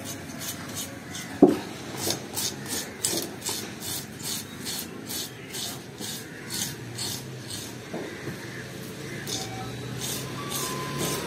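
Hand fish scaler scraping the scales off a large fish in repeated rasping strokes, about two to three a second. One sharp knock about a second and a half in.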